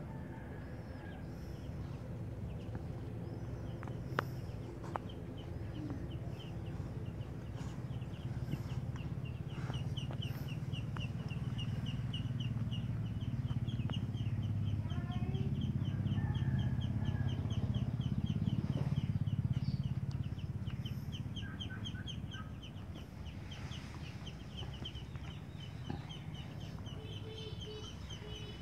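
Birds calling, with a rapid, even chirping trill through most of it and a low steady rumble that swells louder in the middle.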